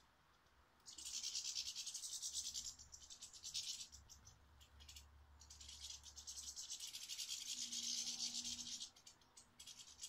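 Budgie tearing at and chewing a half lettuce in its cage: a fast, dry rasping scratch in two long bouts, starting about a second in, pausing briefly near the third second and stopping just before the end.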